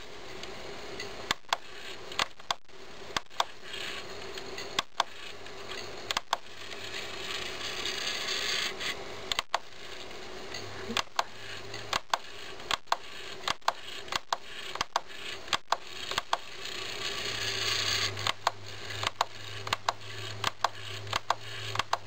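Sharp irregular clicks, about one or two a second, over a faint whirring hiss from an open CD clock radio's disc mechanism, as the skip-forward button is clicked and the laser slide moves. A low hum joins in during the second half.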